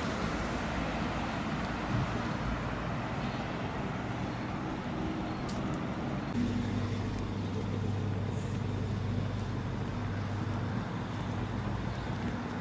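Road traffic on a city street: cars driving past, with a steady low engine hum from one vehicle standing out for a few seconds in the middle.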